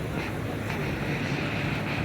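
Steady street noise with a vehicle engine running: a low hum under a hiss that grows a little louder about half a second in.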